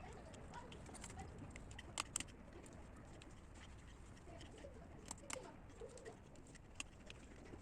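Quiet room tone with a low hum and a few faint clicks and taps, two sharp pairs about two and five seconds in, with faint bird cooing in the background.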